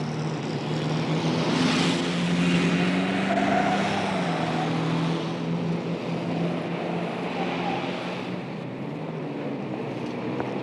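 Heavy road traffic: a continuous drone of engines and tyres, with vehicles passing. It is loudest about two seconds in and eases off a little toward the end.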